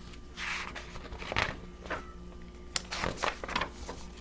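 Paper rustling followed by a scatter of sharp clicks and crackles, the sound of a picture book being handled as its pages are turned.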